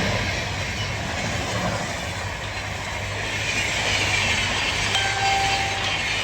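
Train running past on the railway line: a steady rumble with a faint clatter, and a brief thin whine about five seconds in.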